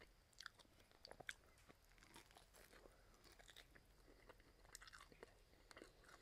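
Faint close-up chewing and biting on pork rib meat: small scattered wet clicks and crunches from the mouth.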